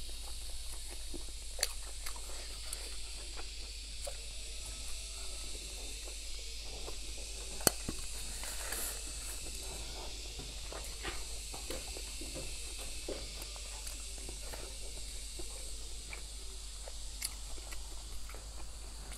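Close-up eating sounds: a person chewing food, with light clicks of wooden chopsticks against the plate and one sharper click about eight seconds in, over a steady hiss and a low hum.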